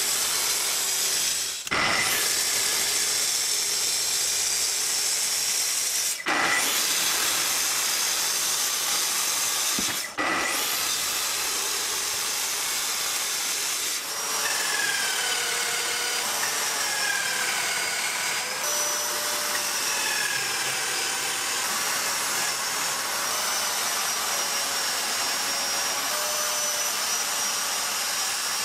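Plunge track saw running on its guide rail and cutting through a cabinet's wooden panel, with dust extraction drawing through the hose; the noise breaks off briefly three times. About halfway the sound changes to a steady power-tool run with a faint wavering high whine over it.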